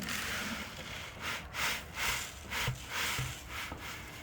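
Dry chicken feed poured into a plastic 5-gallon bucket: a steady hiss, then several short rustling pours.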